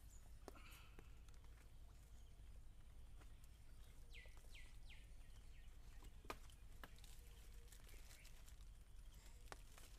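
Near silence with faint outdoor hum. A bird gives three quick calls that fall in pitch about four seconds in, and a few faint clicks come now and then.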